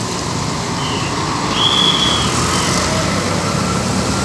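Road traffic with a bus engine running, plus a few short high-pitched whistle tones, the longest about half a second near the middle.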